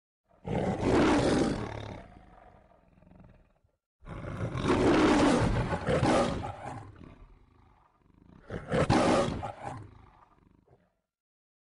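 The MGM studio logo's lion roaring three times, about four seconds apart, each roar trailing off.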